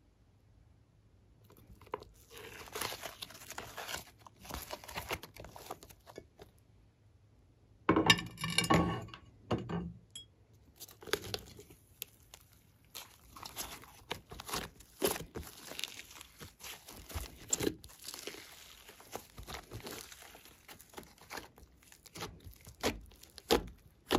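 Soft modelling clay pressed, peeled and crumpled by hand, giving crinkling and crackling sounds, with a louder dense crackle about eight seconds in. Later it becomes steady squishing and crackling with sharp little clicks as the clay is kneaded into sticky slime.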